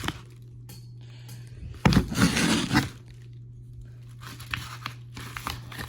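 Balisong blade slicing through material in a sharpness test: one crisp tearing cut about two seconds in, then a few lighter scraping strokes near the end.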